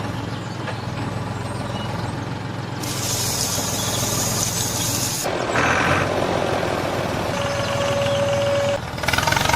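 Truck engine running steadily. About three seconds in, a loud hiss of air lasts about two seconds, and near the end a single steady tone sounds for about a second.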